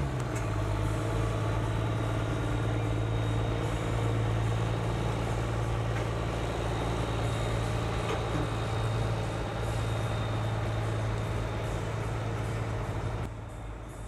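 Engine of a lowered custom medium-duty truck running at a steady, even pitch as it rolls slowly by, with no revving. The sound drops away sharply about a second before the end.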